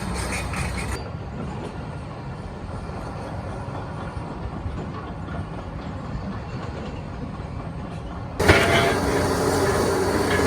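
Backhoe's diesel engine running with a steady rumble. About eight and a half seconds in it turns suddenly louder with the grinding and crunching of the machine crushing demolition debris.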